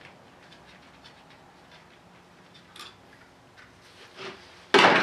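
Tools and engine parts handled in a workshop: faint scattered ticks and scrapes, a couple of light clicks, then one loud sharp clunk near the end.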